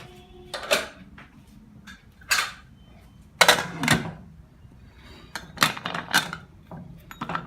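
Metal cookware being handled: a handful of short clanks and scrapes, the loudest about three and a half seconds in.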